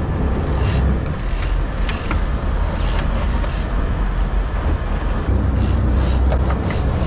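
Sportfishing boat's engines running steadily in reverse, backing down on a hooked marlin. A run of short hissing swishes rides over the engine rumble.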